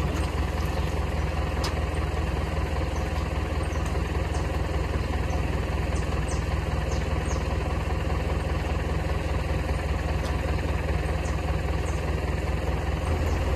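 A car engine idling steadily, the tow vehicle holding the boat trailer backed into the water. Faint scattered ticks sound over the hum.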